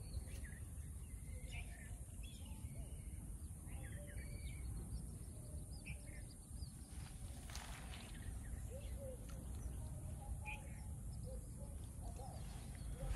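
Small birds chirping in short, scattered calls over a steady low rumble, with a brief rustle about halfway through.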